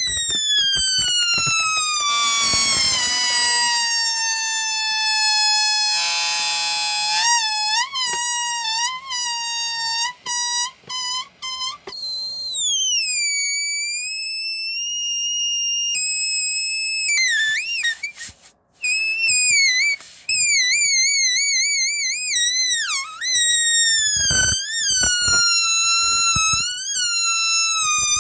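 Air squealing out of the stretched neck of a slowly deflating balloon: a loud, high-pitched whine that slides steadily down in pitch at first, then breaks off and restarts in short squeaks around the middle, and wavers up and down in a warble toward the end.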